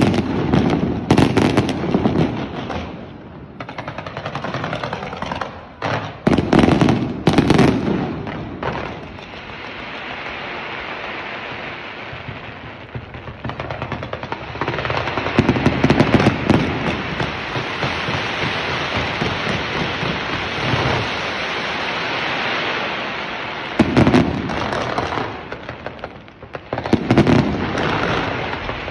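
Fireworks display: rapid strings of bangs in several volleys, with continuous crackling in between.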